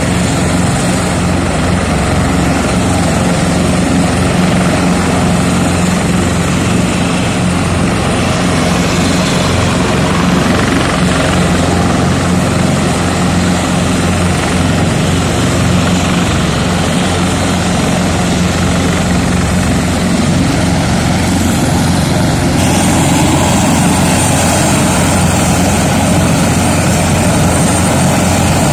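Large military helicopters running on the ground: a loud, steady turbine and rotor drone with a low hum underneath. The higher hiss grows a little stronger about three-quarters of the way in.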